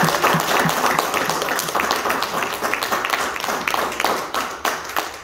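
Church congregation applauding at the end of a song: many hands clapping irregularly, with a few voices over it at first, tapering off at the end.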